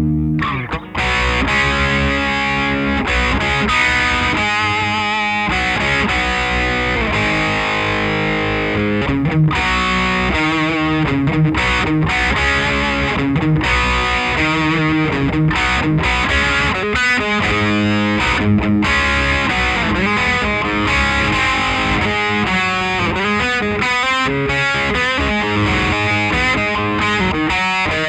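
Electric guitar played through an original late-1980s Marshall The Guv'nor overdrive pedal, giving a gritty, distorted tone. A held chord is cut off about a second in, then a continuous run of notes and chords follows, with slides and bends.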